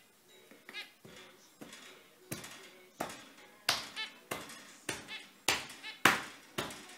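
Zebra finches calling: short, nasal beeping calls, a few at first, then coming about twice a second and louder from about two seconds in.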